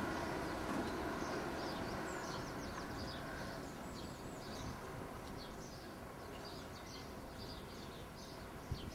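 Small birds singing in quick, high chirping notes over a faint low rumble from the approaching autocoach train, which eases off slightly.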